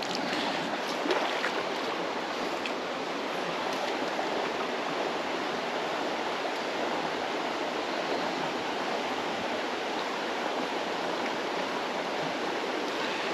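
A creek's water running over rocks in a steady rush.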